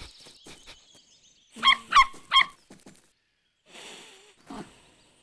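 Cartoon puppy sniffing in quick little ticks, then three short high-pitched yaps about a third of a second apart. Two soft breathy snuffles follow near the end.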